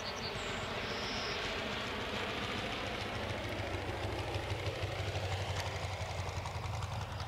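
A model aircraft engine running steadily, with a constant low hum under a broad rushing noise.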